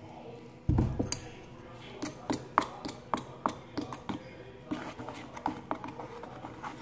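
A plastic spoon stirring in a plastic bowl, clicking against its sides about three times a second. A single thump about a second in, as a box is set down on the table.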